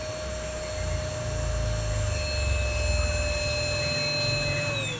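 Vacuum cleaner running on the solar inverter's output with a steady motor whine. Near the end the whine drops in pitch as the draining battery pulls the inverter voltage down, just before the load switches over to mains power.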